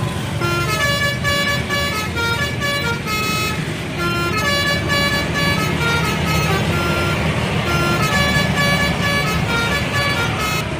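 Indonesian bus telolet horn, a set of multi-tone air horns, playing a quick melody of shifting notes in two phrases, the second starting about four seconds in. The bus engine runs underneath.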